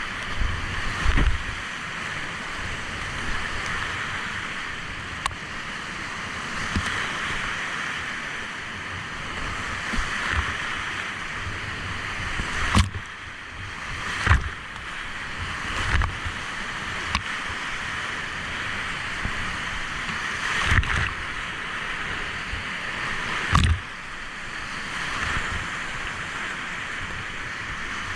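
Fast river water rushing steadily, with a few sharp low thumps over it.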